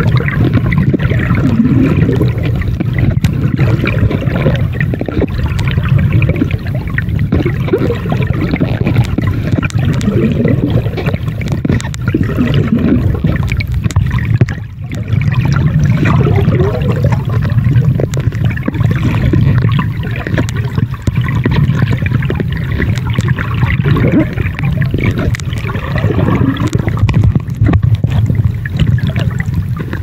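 Underwater water noise picked up by a camera's microphone: gurgling and bubbling with scattered clicks over a steady low rumble, dipping briefly about halfway through.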